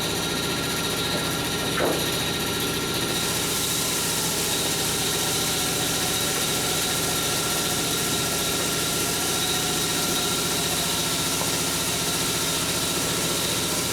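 A machine running steadily: a constant mechanical hum with a thin steady whine, and a single short knock about two seconds in.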